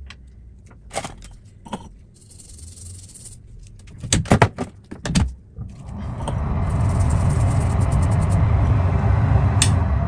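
Small tools clicking and tapping on a laptop logic board while flux is being cleaned off, with a short hiss about two and a half seconds in. About six seconds in, a steady rushing noise begins and keeps going.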